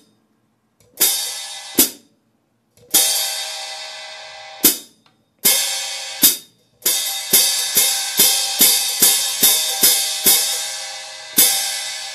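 Zildjian K Custom Hybrid 13¼-inch hi-hat cymbals splashed with the foot pedal: each stroke is a bright ringing wash that is then choked shut with a chick. A few slow splashes, then a quick run of about three a second, then another slow one.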